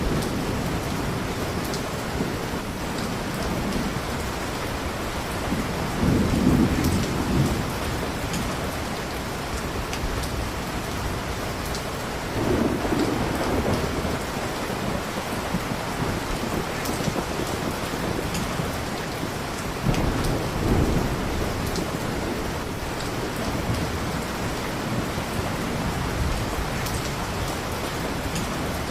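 Steady heavy rainfall with rolls of low thunder, swelling about six seconds in, again around twelve seconds and once more around twenty seconds.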